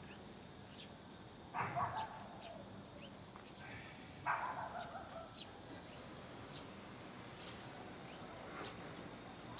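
Faint outdoor ambience with sparse, brief bird chirps and two short bursts of animal calls, about a second and a half and four seconds in.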